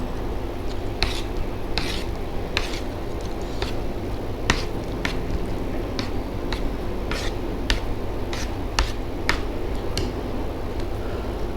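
Spoon clicking and scraping against a plate while eating, in a scattered series of short, sharp clicks over a steady low background hum.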